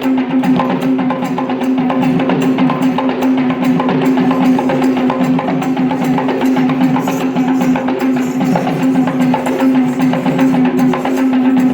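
Traditional Sri Lankan drumming: fast, dense drum strokes over one steady held droning tone.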